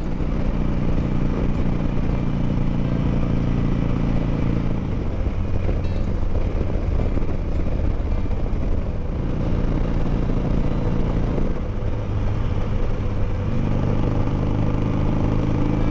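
Harley-Davidson V-twin motorcycle running steadily at cruising speed, heard from the rider's seat over a constant rush of wind noise.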